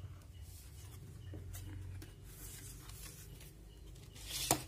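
Faint handling of a light foam model plane as it is lifted off a kitchen scale and turned, with a low steady hum underneath and one sharp knock near the end.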